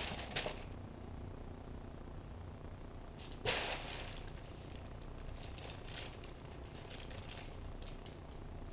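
A few brief rustles over a steady low hum, the loudest about three and a half seconds in, with fainter light ticks scattered after it.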